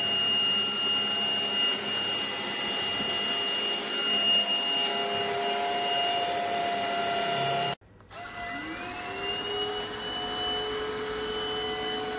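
Stanew 22.2 V 150 W cordless vacuum cleaner running with a steady motor whine. The sound breaks off briefly about eight seconds in, then the motor starts up again, its whine rising in pitch and settling.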